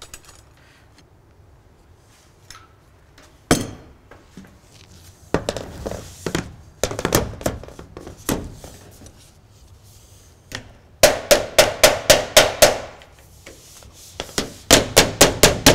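Hammer tapping on a metal roof panel. There are a few scattered knocks, then a quick run of about nine taps, a pause, and another quick run of about six.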